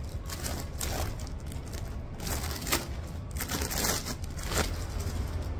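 A suit and its wrapping being handled, rustling and crinkling in several irregular bursts over a steady low hum.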